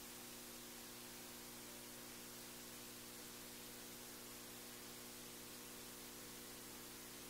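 Near silence: a steady electrical hum with hiss, unchanging throughout.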